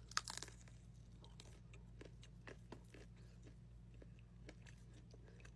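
A bite into a McPizza Bite right at the start, then faint chewing with small scattered clicks.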